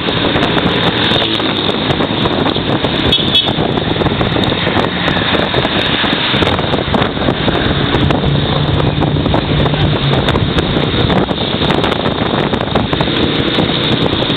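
Loud wind rushing over the microphone with a motorbike engine and street traffic, recorded riding on a motorbike taxi through city streets. A steady low drone rises out of it for about two seconds partway through.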